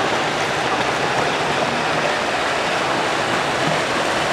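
Steady rush of water pouring and splashing into a pool at the bottom of hydroslides.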